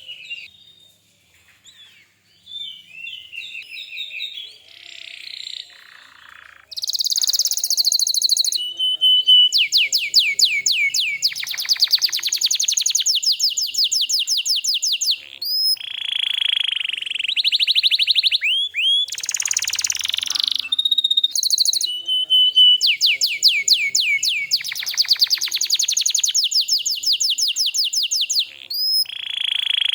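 Domestic canary singing: soft, scattered chirps at first, then from about seven seconds in, loud fast trills of rapidly repeated high notes broken by short pauses.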